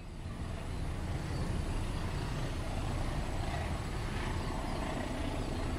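Freight train rolling past at a distance: a steady low rumble of wagons on the track.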